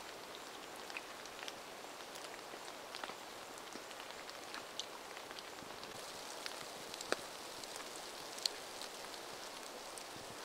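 Light rain falling in a forest: a steady soft hiss of rain with scattered drops tapping on leaves, and a couple of louder drips past the middle.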